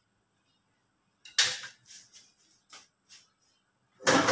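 Kitchen knife chopping ginger and onion on a wooden chopping block: a sharp knock about a second in, then four or five fainter knocks. A louder, longer noise starts near the end.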